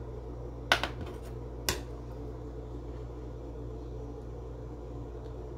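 Two sharp light taps about a second apart, with a few faint clicks between them, from pigment being added to soap in a plastic mold. A steady low background hum runs underneath.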